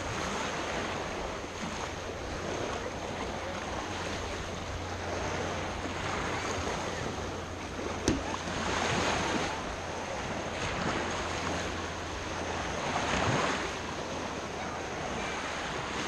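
Small Baltic Sea waves washing over shallow water at the shoreline: a steady wash that swells about nine and again about thirteen seconds in. A single sharp click comes about eight seconds in.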